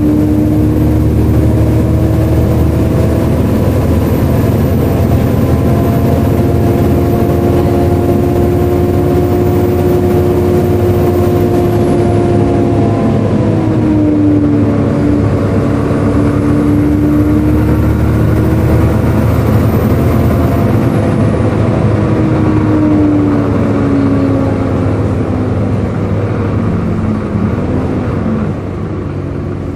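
Volvo B7LA bus's straight-six diesel engine and whirring cooling fan heard on board while the bus drives, the engine note slowly rising and falling with road speed. A high thin whine rises, holds and fades away twice, and the sound eases off near the end.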